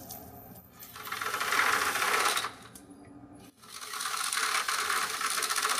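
Power drill enlarging a hole in a plastic crate: two bursts of drilling, the second starting about halfway through and running longer.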